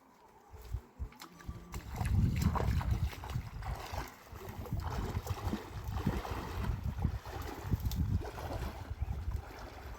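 Rushing river water with wind buffeting the microphone, a heavy fluctuating rumble that comes in about two seconds in after a quieter start with a few knocks.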